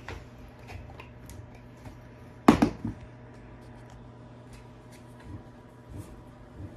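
A dog gnawing a chew bone: scattered small clicks of teeth on the hard chew. A loud knock, followed by a couple of smaller ones, comes about two and a half seconds in.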